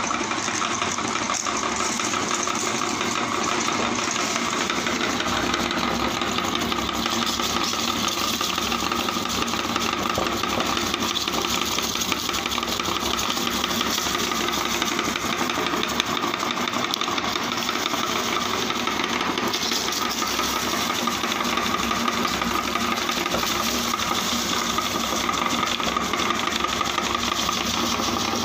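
Motor-driven meat grinder running steadily, its screw crushing potato chips and small biscuits through the cutting plate, with a crunching, rattling grind over the motor's hum.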